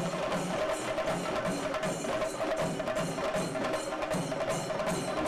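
Procession percussion: drums and sharp clacking beats at a fast, even pace of about four strokes a second, over a steady held tone.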